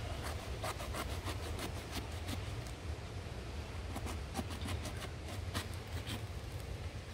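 Kitchen knife shaving the green rind off a fruit in strips: a run of crisp, irregular scraping cuts, several a second, over a steady low rumble.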